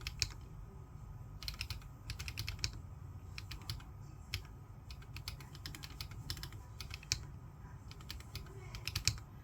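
Typing on a Corne v3 split mechanical keyboard with lubed switches and Lumia Macha keycaps: keystrokes come in quick runs with short pauses, and a handful of louder strikes fall near the end. A steady low hum sits under the clicks.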